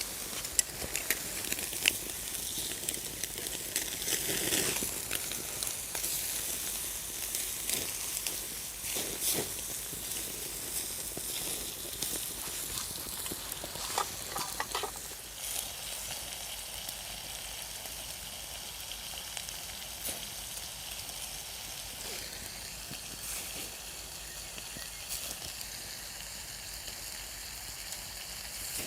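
Marinated meat frying in a hot pan over a campfire: a steady sizzle with scattered clicks and crackles, easing slightly about halfway through.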